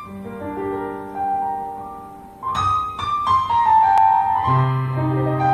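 Slow piano instrumental introduction to a song, with separate notes struck and left ringing over one another. A low held note comes in about a second before the end.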